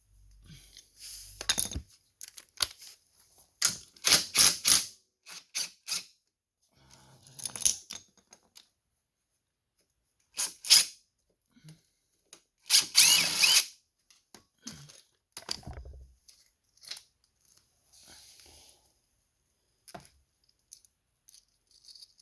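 Tools working on the Yamaha Banshee's chain rollers: a series of short separate tool noises with gaps between, a quick group about four seconds in and a longer one of about a second near thirteen seconds in, as the worn lower and middle rollers are unbolted and taken off.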